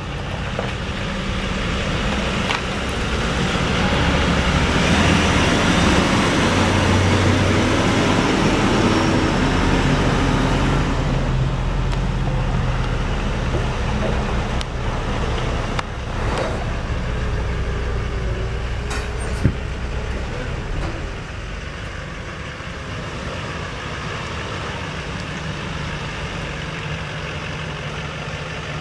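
Chevrolet C4500's Duramax 6.6-litre V8 turbodiesel running as the utility truck drives off, loudest in the first ten seconds and then quieter as it moves away and turns to come back. A single sharp click about two-thirds of the way through.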